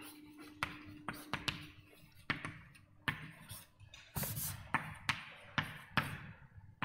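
Writing on a lecture board: a string of irregular sharp taps, each followed by a short scratchy stroke, the loudest about four seconds in.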